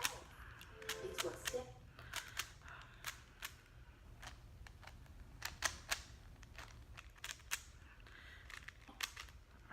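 Speed cube being turned during a solve: its plastic layers clicking in sharp, irregular snaps, sometimes several a second.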